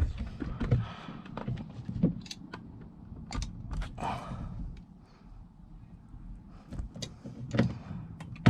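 Hand pop rivet gun being squeezed repeatedly, a run of sharp metallic clicks with a short lull in the middle, as the jaws draw the rivet's mandrel tighter before it snaps.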